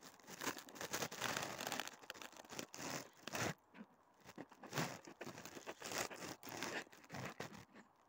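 Close, irregular crunching and rustling noise from the person filming, right at the microphone. It starts abruptly and stops just before the end.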